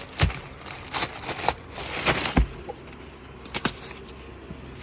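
Handling noises from fabric pieces in plastic packing: rustling and crinkling, broken by several short, sharp knocks and clicks.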